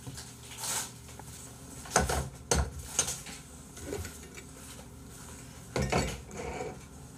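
Plastic takeout food containers clattering as they are handled on a desk: a handful of sharp knocks and rattles, the loudest about two seconds in and again near the end.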